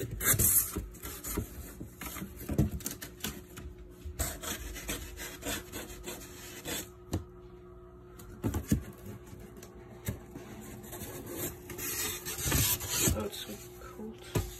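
Cardboard shipping box and styrofoam insulated container being handled and opened: irregular scraping and rubbing of foam against cardboard, with scattered knocks. Newspaper packing crinkles near the end.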